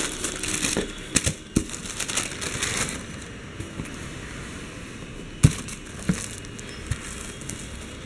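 Tissue paper in a shoe box rustling and crinkling as it is folded back, with a couple of sharp clicks, for about the first three seconds. Then quieter handling with a few sharp knocks, the loudest about five and a half seconds in.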